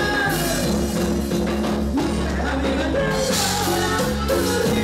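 Live band playing a Latin pop song: drum kit, guitar and Roland Fantom keyboard carry the steady beat, with the female lead and a male backing voice singing in the second half.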